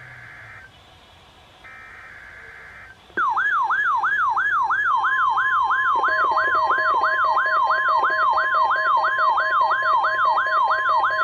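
Two buzzy one-second bursts of the NOAA Weather Radio SAME digital alert header. About three seconds in, a much louder warbling siren starts, sweeping about three times a second: a weather alert receiver's alarm set off by the weekly test. The steady NOAA warning alarm tone joins under it, with another steady alarm tone from about six seconds.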